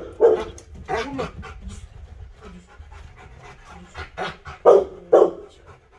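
An excited dog barking in short bursts, twice near the start and three times close together about four to five seconds in, with panting in between.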